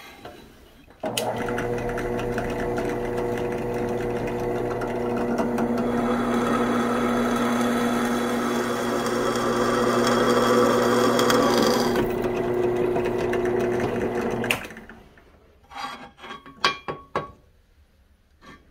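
Drill press motor starts about a second in and runs with a steady hum while a twist bit drills through saw-blade steel. A harsher cutting noise is loudest in the middle and eases off a couple of seconds before the motor is switched off. A few sharp metallic clinks follow.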